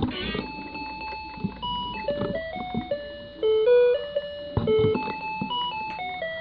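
Toy electronic guitar playing a built-in melody in plain beeping tones, one note at a time, stepping up and down, with a few short knocks from handling.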